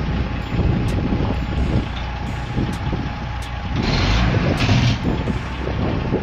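Heavy dump truck's diesel engine running with a low rumble and a steady whine, with a burst of hissing about four seconds in.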